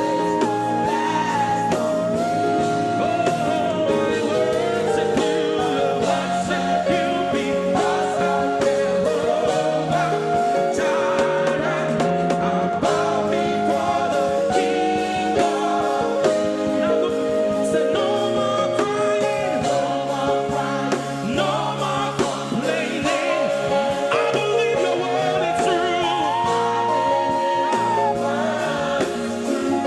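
Gospel worship music: singing over instrumental accompaniment, with long held notes.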